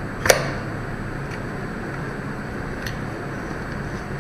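Handling of a Canon EOS 200D's rotating LCD screen: one sharp click about a third of a second in, then a couple of faint ticks, over a steady background hiss.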